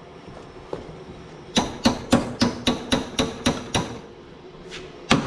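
Chipping hammer rapping on a freshly welded joint in a lawnmower's thin steel-tube handle, knocking the welding slag loose. Quick metallic taps at about four a second begin a second and a half in, stop briefly near the end, then start again.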